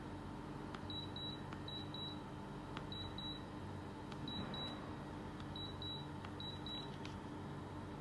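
LG split air conditioner beeping as remote-control commands are keyed in: six pairs of short high beeps, most just after a faint button click. A steady low hum runs underneath.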